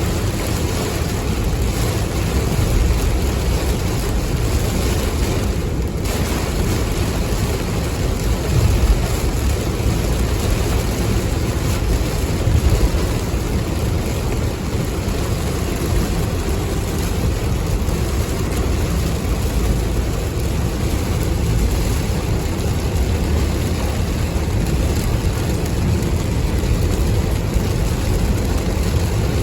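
Steady rain mixed with the steady low rumble of a car.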